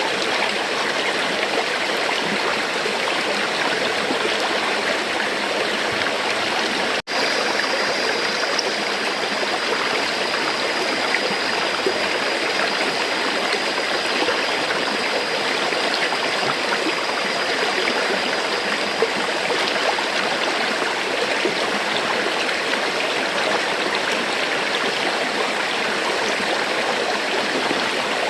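River water flowing steadily, an even rushing hiss of moving water. About seven seconds in, the sound drops out for an instant.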